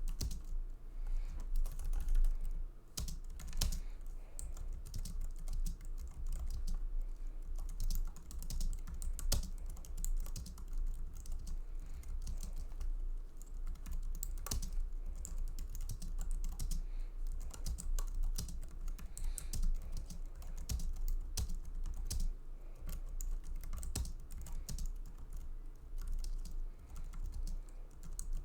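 Typing on an Apple full-size keyboard: a continuous, uneven run of key clicks, with a few louder strokes now and then.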